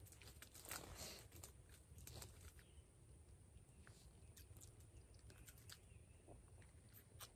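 Near silence, with faint scattered small clicks and crunches of crackers being chewed, mostly in the first couple of seconds and a few more near the end.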